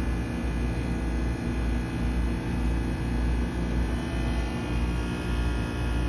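Outdoor heat pump and air-conditioner units running: a steady low hum over a strong deep drone that vibrates the ground, which may come from a neighbouring Lennox unit.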